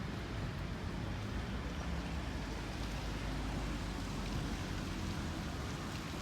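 Steady outdoor background noise: a low rumble with a hiss over it, unchanging and with no distinct events.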